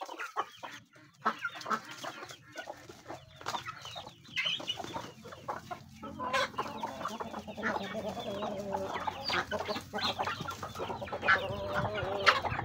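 A flock of chickens clucking as they peck at food on the ground. Short calls come throughout and grow more frequent from about six seconds in.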